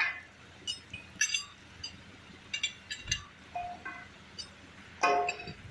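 Steel lifting chains and hooks clinking and rattling against each other in a series of short, ringing metallic clinks as a heavy steel part is rigged for lifting, with a fuller clank a little after halfway and another near the end.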